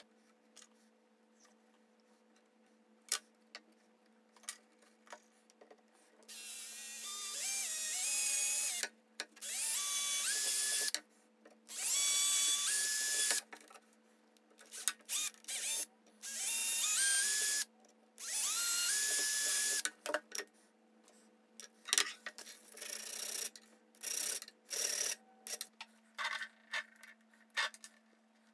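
Small electric drill boring holes in a thin wooden strip, run in about five short bursts, each with a whine that climbs in steps as the motor spins up. Light clicks and taps of wooden sticks being handled follow near the end.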